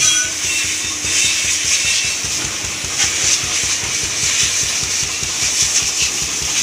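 Water from a garden hose, narrowed by a thumb over its end, spraying steadily onto a tractor's exposed engine with an even hiss. A low, rapid pulsing runs underneath.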